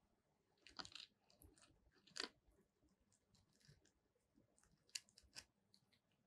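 Fingers grabbing and pulling a fried chicken drumstick coated in chilli sauce from the pile: faint scattered crackles of the crisp coating, sharpest about two seconds in and twice near the end.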